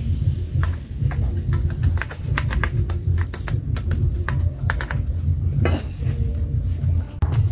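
Metal ladle pouring and spreading batter in a hot cast-iron waffle iron on a charcoal stove: a run of small, irregular clicks and crackles, over a steady low rumble.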